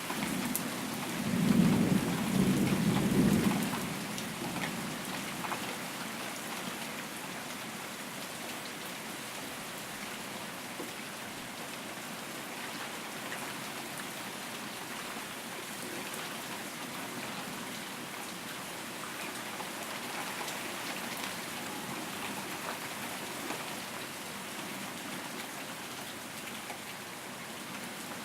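Steady heavy rain hissing and pattering, with one low rumble of thunder between about one and four seconds in, the loudest part; afterwards only the rain goes on.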